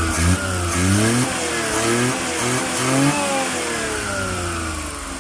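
Suzuki F6A three-cylinder engine in a Multicab revved in several quick throttle blips, then its revs falling slowly back toward idle. It starts and runs freely now that its tight valves, which had caused the hard starting, are dealt with.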